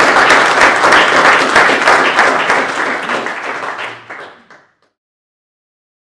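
Audience applauding, many hands clapping together; the applause fades out about four and a half seconds in.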